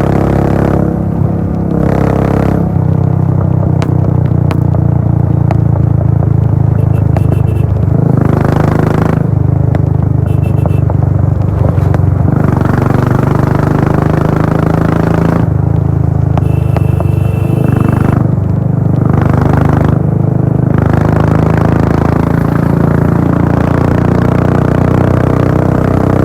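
Royal Enfield Bullet 500's single-cylinder engine running through a Gold Star-style full-system exhaust while riding. It is a steady, loud exhaust note, and its upper edge thins out and comes back several times.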